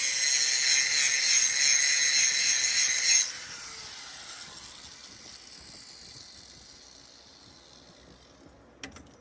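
Hand-held power tool, most likely an angle grinder, grinding with a steady high whine. It is switched off about three seconds in and spins down with a falling whine. A single short click comes near the end.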